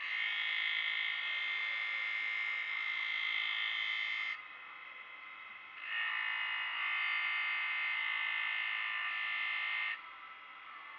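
Crystal whisky glass pressed against a spinning cutting wheel, grinding with a high, steady, singing screech in two stretches of about four seconds each. Each stretch stops abruptly when the glass is lifted off, leaving the wheel's fainter running sound in between.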